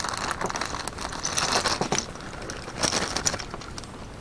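Packaging crinkling and rustling in irregular bursts as small accessory parts are unpacked and handled, quieter near the end.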